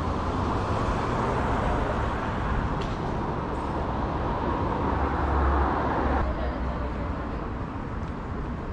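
City street traffic noise: cars passing on the roadway beside the sidewalk, a steady rushing with a low rumble that drops away about six seconds in.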